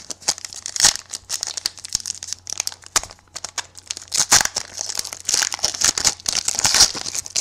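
Foil wrapper of a football trading-card pack crinkling and tearing as it is ripped open by hand, a dense run of sharp crackles that grows heavier about four seconds in.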